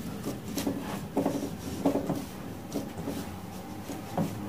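Hands pinching off soft wheat dough and rolling it into balls in a glass bowl: quiet rubbing and squishing, with about half a dozen light, irregular knocks against the bowl.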